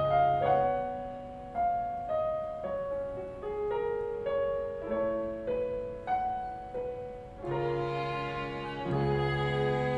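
String quartet and piano playing an instrumental arrangement: a lighter passage of single melody notes stepping up and down, then low notes and fuller chords come in about seven and a half seconds in.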